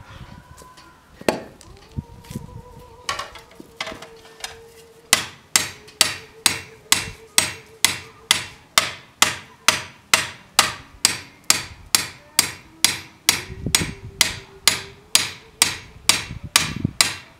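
Blacksmith's hand hammer striking hot steel on an anvil: a few single blows at first, then from about five seconds in a steady, even rhythm of roughly two to three sharp strikes a second.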